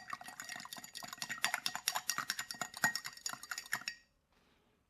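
A spoon stirring briskly in a container, clinking rapidly against its sides, as sugar is dissolved into a hot gelatin mixture. The stirring stops suddenly about four seconds in.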